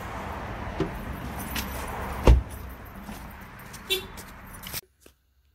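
A car door shuts with a thud about two seconds in, amid light jingling and clicking, over steady outdoor background noise. The sound stops abruptly near the end.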